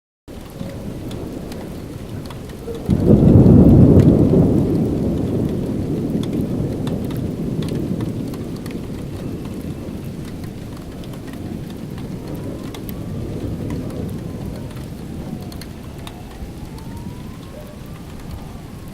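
Steady rain falling, with a loud clap of thunder about three seconds in that rumbles on and slowly fades over several seconds.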